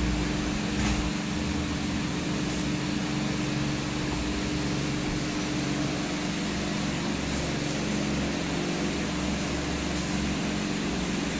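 Steady mechanical hum with a constant tone over an even hiss, unchanging throughout.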